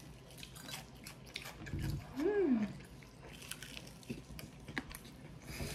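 Crispy fried chicken being bitten and chewed, a scatter of small sharp crunches. About two seconds in, a short hummed "mm" rises and falls in pitch.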